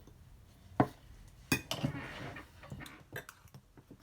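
Eating utensils clicking against a takeout food container: two sharp clicks about a second apart, then a short rustle and a few lighter taps.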